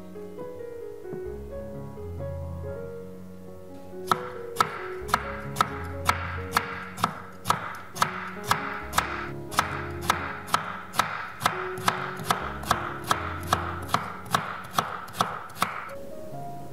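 Knife slicing a pickled cucumber (oiji) into thin rounds on a wooden cutting board: an even run of sharp cuts, a little over two a second, starting about four seconds in and stopping shortly before the end.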